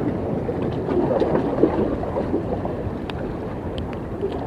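Wind on the microphone and choppy sea washing against the rocks: a steady rushing noise, with a few faint ticks.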